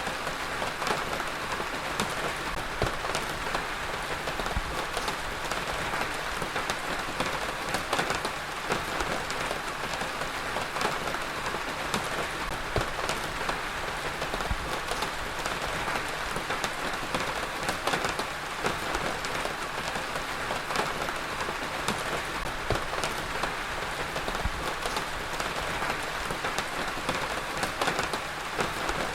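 Heavy rain falling steadily, a dense even hiss with many individual drops ticking on a hard surface.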